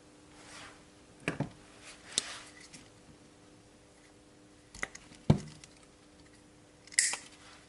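Pliers or cutters working the thin metal lever of a microswitch limit switch to shorten it: a few sharp clicks and light rustles.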